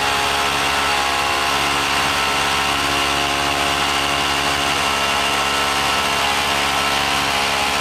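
Electric hammer drill running steadily as it bores holes into a concrete slab, weakening the slab so it can be broken out.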